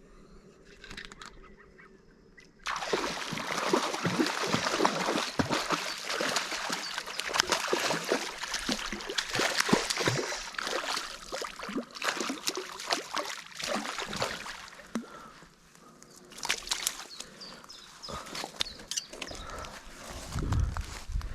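Water splashing and sloshing with many sharp slaps. It starts suddenly about three seconds in, stays busy for about ten seconds, then grows sparser.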